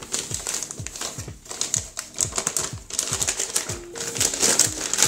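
Clear plastic bag crinkling and crackling in dense, rapid clicks as it is pulled off an aluminium computer case. Background music with a regular beat plays underneath.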